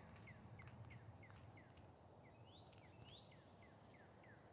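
Near silence, with faint short falling chirps repeating about three times a second and a few faint clicks.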